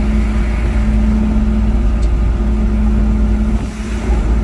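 Car driving along a road, heard from inside the car: a steady engine drone over a heavy low rumble, dipping briefly near the end.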